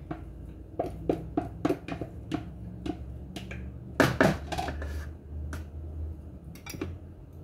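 Butter being worked out of a plastic bag into a mixing bowl: a string of irregular sharp taps and clicks, the loudest about four seconds in, over a steady low hum.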